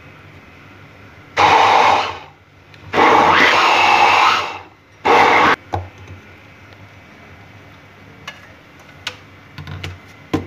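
Small electric kitchen grinder run in three short pulses, the middle one the longest at about a second and a half. A few light clicks and taps follow near the end as the jar is handled.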